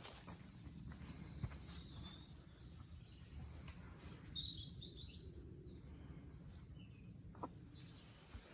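Faint woodland birdsong: scattered short, high chirps over a low steady background rumble.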